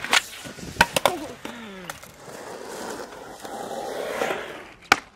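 Skateboard on concrete: sharp clacks of the board and trucks hitting the ramp near the start, twice about a second in and again near the end, with urethane wheels rolling across the concrete in between, the rolling growing louder in the middle.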